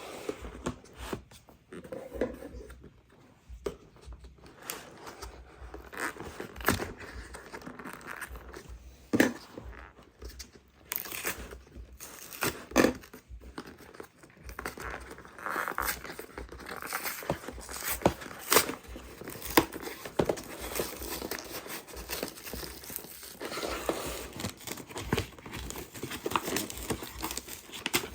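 Product packaging being unwrapped by hand: irregular crinkling and tearing, with scattered sharp clicks.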